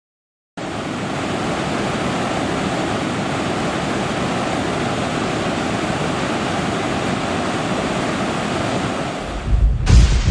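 Steady rush of a waterfall, then near the end a deep rumble of thunder builds and breaks in a sharp crack.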